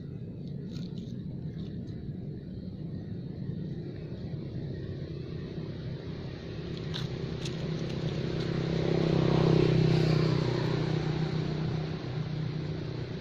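Low engine hum of a passing motor vehicle, growing louder to a peak about nine to ten seconds in, then fading.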